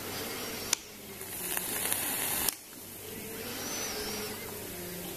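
E-liquid sizzling and hissing on a freshly wicked coil in a rebuildable dripping atomizer as the coil is test-fired. It comes in pulses of a second or two, each swelling and then stopping sharply with a click.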